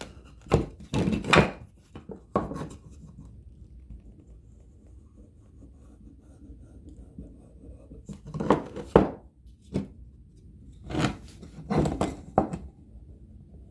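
Short knocks and scrapes of wooden boards and tools being handled on a workbench, in a cluster near the start and another in the second half, with a faint low hum between.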